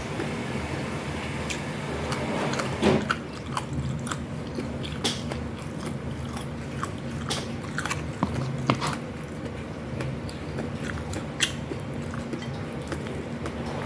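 Close-miked eating: biting and chewing fried food, with irregular crisp crunches and wet chewing. The loudest crunch comes about three seconds in, over a faint steady low hum.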